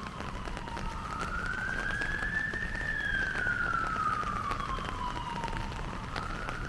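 Emergency vehicle siren in a slow wail, its pitch sliding up and down over several seconds: down, up, down and starting up again. Beneath it, steady rain with many small drip ticks.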